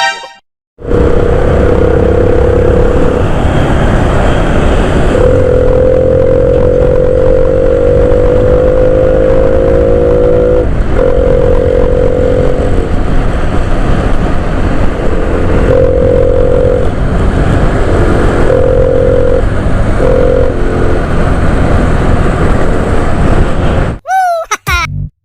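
Motorcycle engine running on the road, its note climbing slowly for several seconds, then dropping and coming back in stretches, over a heavy rumble of wind on the microphone.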